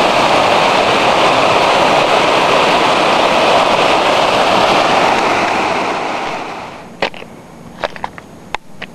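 River water rushing over a rock ledge in small rapids, a steady loud rush that fades out about six seconds in. It is followed by a few short, sharp clicks.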